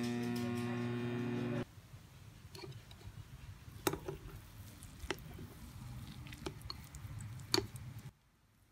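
Cuisinart microwave oven running with a steady hum, which cuts off suddenly after about a second and a half. Then chopsticks stir instant noodles in a ceramic bowl, with a few sharp clicks of the chopsticks against the bowl.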